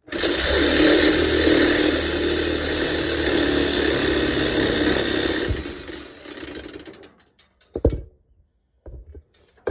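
Power cutting tool starting abruptly and cutting steadily through a metal bed bolt on a pickup, then winding down after about five and a half seconds. Two short knocks follow near the end.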